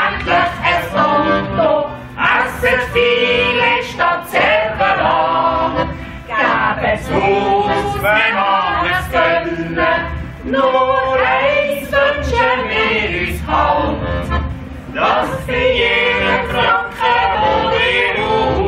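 Several voices singing a Swiss yodel song (Jodler) together, accompanied by accordion, guitar and tuba.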